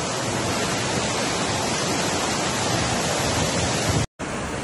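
Floodwater rushing down a stairway in a steady torrent. The sound cuts out for a moment about four seconds in and then the rush of water resumes slightly quieter.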